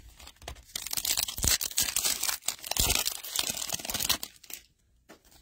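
Foil wrapper of a Panini Playoff football card pack being torn open and crinkled by hand: a dense crackling rustle that stops about four and a half seconds in.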